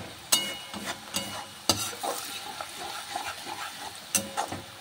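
Sliced mushrooms frying in oil in a steel wok, sizzling steadily, while a spatula stirs and scrapes them; the spatula knocks against the pan a few times with short, ringing clinks.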